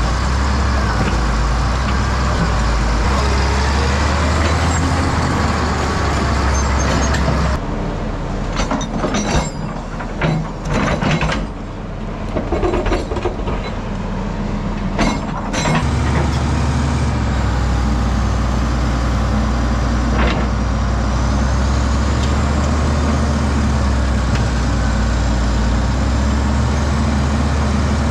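Heavy diesel engines of a Cat D7 bulldozer and a tracked excavator running hard under load. For several seconds in the middle the engine hum drops back and a run of clanks and knocks comes through as the excavator bucket digs into rock and dirt; then the steady engine sound returns.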